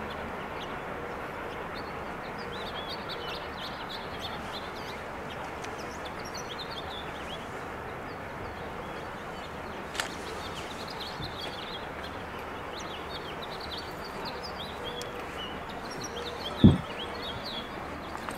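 Small birds chirping over a steady outdoor background hiss. There is a sharp click about ten seconds in, and a brief low thump, the loudest sound, near the end.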